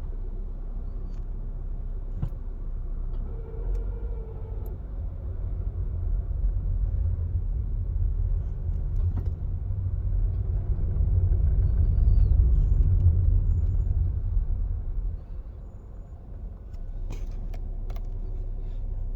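Low rumble of a 2022 Volkswagen Polo 1.4 with a 7-speed DSG, heard from inside the cabin as the car drives in slow traffic. The rumble builds for several seconds, then drops sharply about fifteen seconds in. The owner reports an intermittent strange noise from the drivetrain when pulling away.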